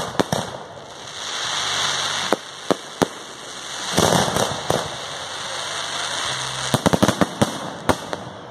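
Fireworks display: aerial shells bursting with sharp bangs, stretches of hissing noise between them, and a quick cluster of bangs about seven seconds in.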